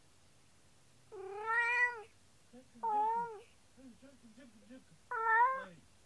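A cat meowing three times: a long meow about a second in, a shorter one about three seconds in, and another near the end, with faint low murmurs between the second and third.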